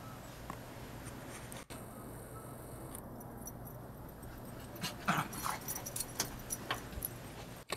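A small dog barking a few short times in quick succession about five seconds in, over a faint steady background.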